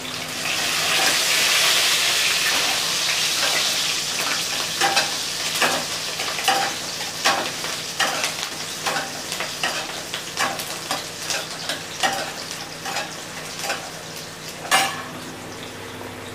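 Chopped ginger and green chillies hitting hot oil in a kadai, sizzling loudly at first and then dying down, while a spatula stirs them with many small scrapes and taps on the pan. One sharper knock near the end.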